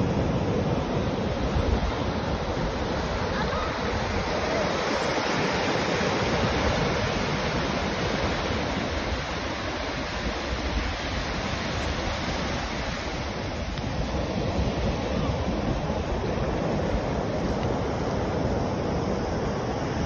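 Pacific Ocean surf breaking and washing up over the shallows in a steady rush, with wind rumbling on the microphone.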